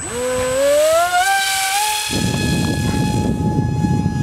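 RC model jet's electric ducted fan spooling up: a whine that rises steadily in pitch for about two seconds, then holds at a steady high pitch. From about halfway, a low rushing noise joins in.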